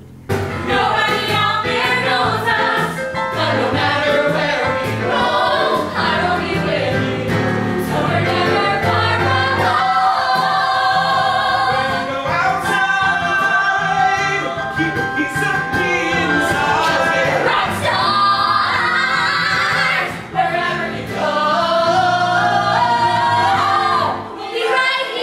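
Musical-theatre song sung by several voices together, with keyboard accompaniment.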